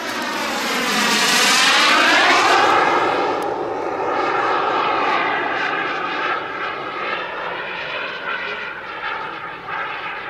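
Turbine engine of a Boomerang RC model jet on a low pass, its jet rush swelling to a peak about two seconds in and then running on steadily as it flies away. A faint high turbine whistle rides on top at first.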